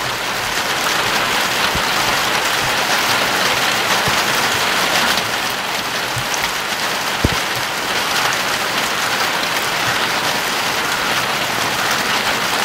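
Heavy rain pouring down, a steady dense hiss of drops, with one sharper tap a little past the middle.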